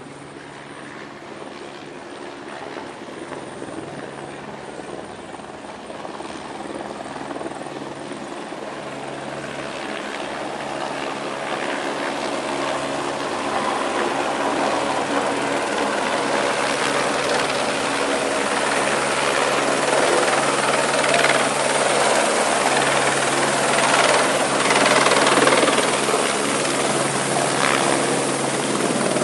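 Rescue helicopter descending to land close by. Its rotor and engine grow steadily louder, a steady hum under a rising rush of noise from the rotor wash.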